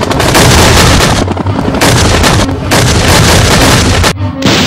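A barrage of military artillery and gunfire with shell explosions, dense and continuous, breaking off briefly a few times.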